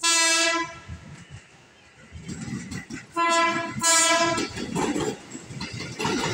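Horn of an approaching KRL Commuter Line electric train, sounded in three short blasts: one at the start, then two in quick succession about three seconds in, over the rising rumble of the train drawing in.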